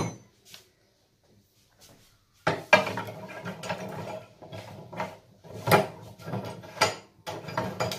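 Clanks and knocks of square metal pipe being handled and set into the steel vise of a cut-off saw, with the vise clamp being worked. The first two seconds are nearly quiet, then come several sharp metal knocks, the loudest about three, six and seven seconds in.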